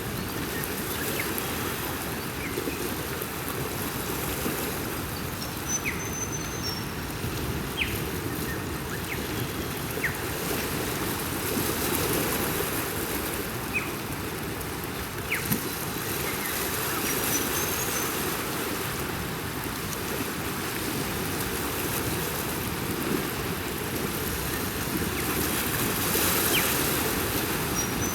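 Ocean waves washing steadily on a shore, swelling gently twice, with a few faint high chirps on top.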